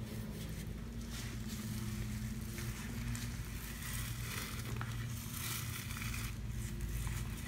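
Stiff-bristled dish brush scrubbing wet Comet scouring powder around a stainless steel sink, a gritty scratching that comes in strokes from about a second in until near the end. A steady low hum runs underneath.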